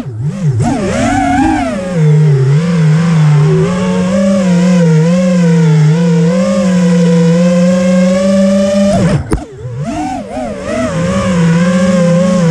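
FPV quadcopter's brushless motors and propellers whining in flight, the pitch wavering up and down with the throttle. About nine seconds in the sound briefly drops away, then spools back up.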